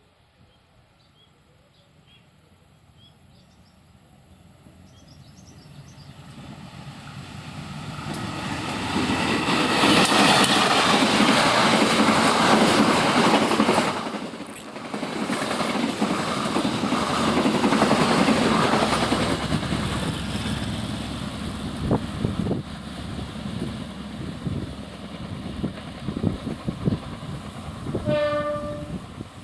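Diesel-electric locomotive CC 201 hauling a passenger train, approaching and passing with a rising rumble. The carriages then roll by with a rhythmic clickety-clack of wheels over rail joints, and a brief pitched tone sounds near the end. Birds chirp faintly at first.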